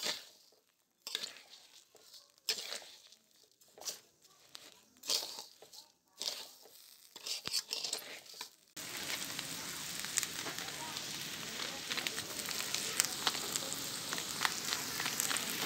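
Raw rice grains stirred and turned over in a pot with onion and oil, heard as a string of short rustling strokes. About nine seconds in, a steady sizzle with small crackles sets in, as of the oiled rice frying in the hot pot.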